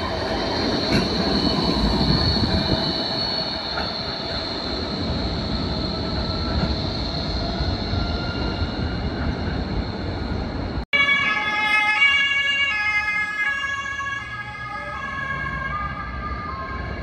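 Bombardier Flexity tram rolling through a curve: low rumble of the car on the rails with a steady high wheel squeal. After a break about 11 seconds in, the squeal returns as several tones at once that jump in pitch for a few seconds before settling into one steady tone.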